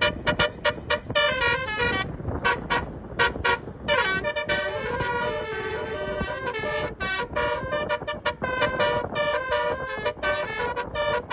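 Bus telolet horns playing a fast tooting melody, with short notes stepping up and down in pitch, the Basuri tune, over a low rumble.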